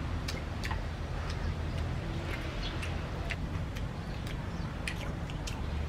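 Scattered small clicks and smacks of chewing and eating, a few a second, over a steady low rumble.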